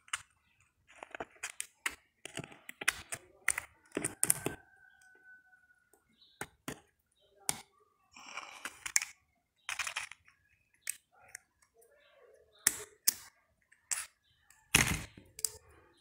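Irregular clicks, taps and light scrapes of small parts being handled: pliers and a steel coil spring worked against the small plastic housing of a washing-machine thermo-actuator.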